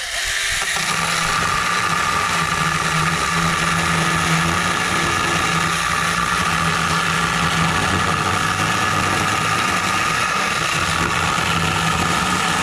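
Cordless 21-volt mini chainsaw with a 6-inch bar running steadily while it cuts through a wooden 2x4, its chain not yet oiled.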